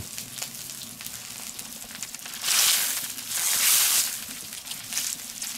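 Bacon-wrapped spring rolls sizzling on an oiled steel fire plate, with two louder surges of sizzling about two and a half and three and a half seconds in as the rolls are pulled apart and turned with tongs onto fresh hot steel.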